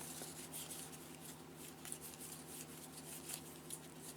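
Trading cards being handled and flipped through one after another: faint, quick paper rustles and soft slides, over a low steady room hum.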